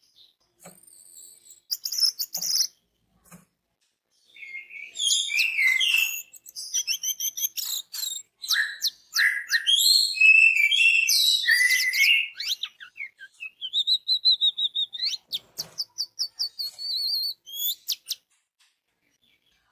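Orange-headed thrush (anis merah) singing a long, varied song of fast whistled and chattering phrases, high-pitched. A few short notes open it, then after a brief pause the song runs on thickly, ending in a rapid string of repeated notes.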